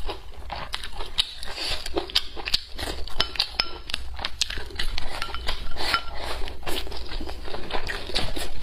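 Close-up eating sounds: chewing of stir-fried chili peppers and rice with many small wet clicks and crackles, and wooden chopsticks clicking against a ceramic rice bowl.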